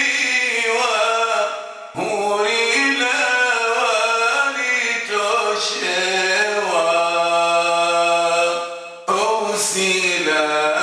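A man's voice chanting a Comorian memorial poem in long melodic phrases. He breaks for breath about two seconds in and again near the end, and holds one long steady note before the second break.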